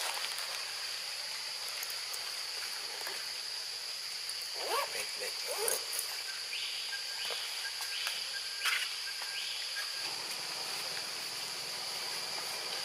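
Forest ambience dominated by a steady, high-pitched insect drone. A few short, faint calls come about five seconds in, and a run of short rising chirps repeats about every 0.7 s for a few seconds in the middle.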